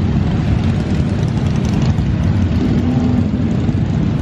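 A line of motorcycles riding past one after another, their engines running steadily together.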